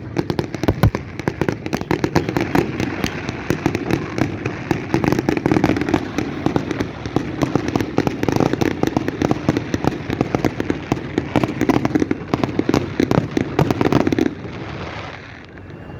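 Fireworks display going off in rapid succession, a dense run of crackling pops and bangs that thins out about fourteen seconds in.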